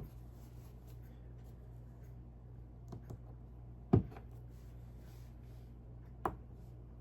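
Small plastic Lego pieces being handled and pressed together: a few faint clicks about three seconds in, a sharper click about four seconds in and another a little after six seconds, over a low steady hum.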